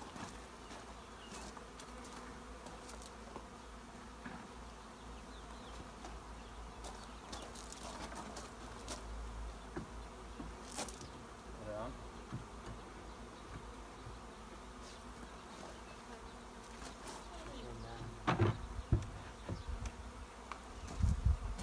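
Honeybees from a freshly installed package buzzing steadily around a top bar hive, still unsettled in their new home. Near the end come a few sharp wooden knocks as the hive's roof is set in place.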